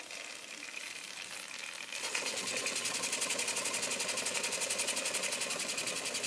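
Weeden No. 3 toy steam engine running: its small oscillating cylinder chuffs exhaust steam in a rapid, even beat. The sound is faint at first and gets clearly louder about two seconds in.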